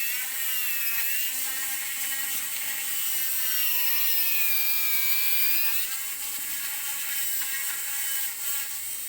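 Dental handpiece running an inverted cone bur as it flattens the floor of a class I cavity in a lower molar. Its whine keeps wavering and dipping in pitch as the bur bears on the tooth.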